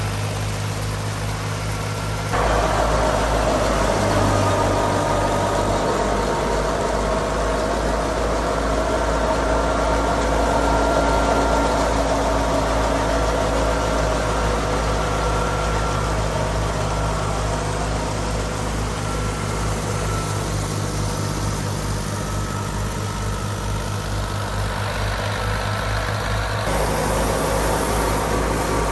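Fiat 480 tractor's diesel engine running steadily under thresher work. About two seconds in the sound jumps abruptly louder and fuller, and it changes again near the end.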